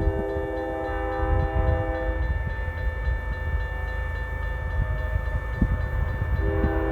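Diesel freight locomotive's air horn sounding a chord for a crossing: the blast cuts off about two seconds in and a new blast starts near the end, over the locomotive's low engine rumble. A grade-crossing bell keeps ringing steadily throughout.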